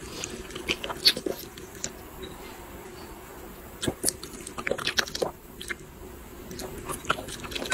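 Small dog biting and chewing leafy greens taken from chopsticks: irregular crisp crunches and wet clicks in bursts, with a quieter spell about two to four seconds in.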